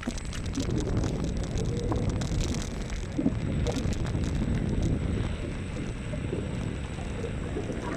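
Wind buffeting the microphone and road rumble during a ride on a Xiaomi M365 electric scooter, with scattered light clicks and rattles.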